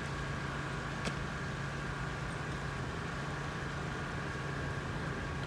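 Steady mechanical drone of distant engines: a constant low hum with a faint, steady higher whine over a noise haze. There is a single sharp click about a second in.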